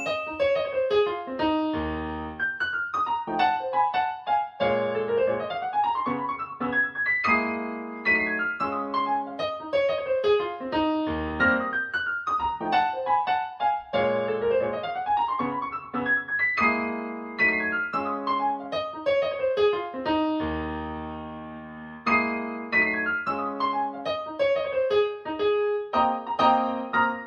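Solo piano music with fast arpeggiated runs sweeping down and back up the keyboard, played back through Fyne Audio F500 SP loudspeakers.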